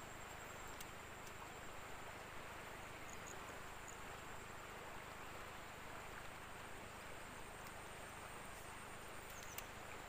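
Faint, steady rush of river water flowing over shallows, with an insect's continuous high-pitched trill above it. A faint click sounds near the end.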